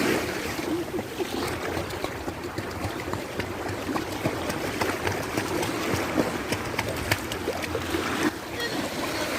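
Water splashing and lapping steadily, with many small irregular splashes.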